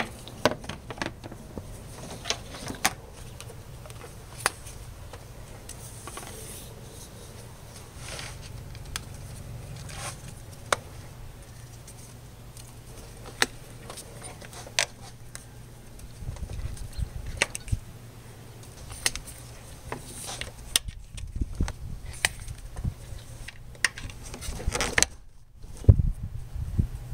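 Irregular clicks, rubs and light knocks of rubber spark plug wires being handled and fitted: boots pushed onto the plugs and wires snapped into their holders. A low steady hum runs underneath.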